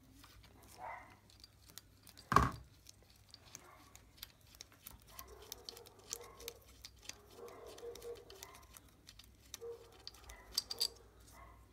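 Small metal clicks and taps of a wrench and hands working the bolt between the cylinder head and cylinder of a small 125 cc-class ATV engine, with one louder metal knock about two and a half seconds in.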